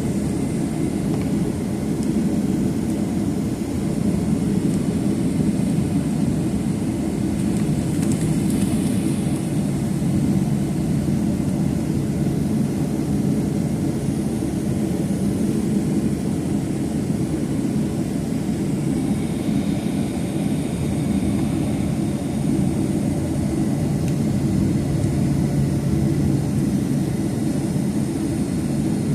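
Cabin noise inside a Boeing 737-800 with its CFM56-7B turbofan engines running: a steady, even roar with a low hum.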